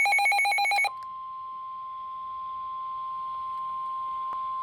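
Emergency Alert System broadcast tones: a rapidly warbling electronic data burst cuts off about a second in. A single steady alert tone of about 1 kHz, the NOAA Weather Radio warning alarm tone that precedes a flood warning message, takes over and holds.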